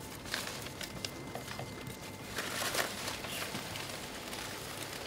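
Soft rustling and crinkling of folded origami paper as strings of thousand paper cranes (senbazuru) are handled and lifted out of a box. The rustle is scattered with small clicks and grows a little denser about halfway through.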